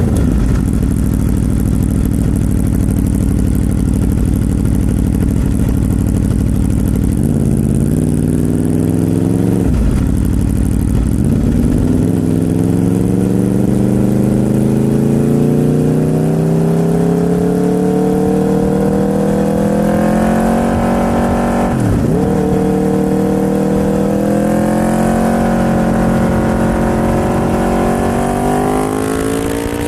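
Aprilia RSV4 sportbike's V4 engine pulling under way, its pitch climbing slowly as it accelerates. It drops sharply and comes back up right at the start, about ten seconds in and about twenty-two seconds in, like quick gear changes.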